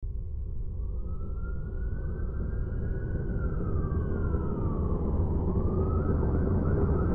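A siren wailing slowly up and down, one long rise, fall and rise again, over a louder low, steady rumble like city traffic.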